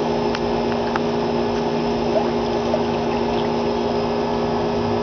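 Steady hum of an electric motor holding several fixed tones, with light water splashing and a few faint clicks near the start.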